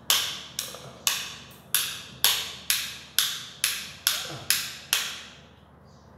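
A plastic wall rocker switch clicked on and off over and over, about two sharp clicks a second, stopping about a second before the end.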